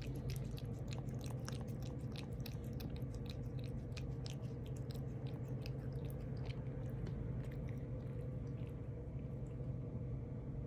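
A cat chewing and crunching food: quick, crisp clicks that come thick at first and thin out after about seven seconds, over a steady low hum.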